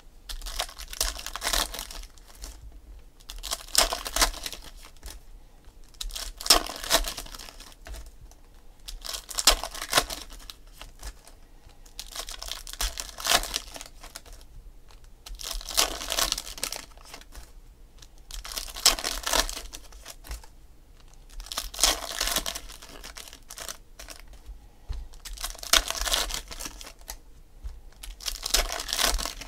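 2016 Panini Donruss Optic football foil card packs being torn open one after another, the foil wrappers crinkling and ripping in about ten separate bursts, roughly one every three seconds.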